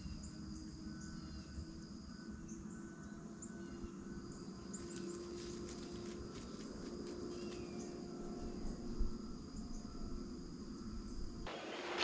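Field ambience of insects and crickets trilling, with a steady high tone, a chirp pulsing about every half second, and scattered short bird chirps. A soft thump comes about nine seconds in. Near the end the sound changes to a close rustling hiss.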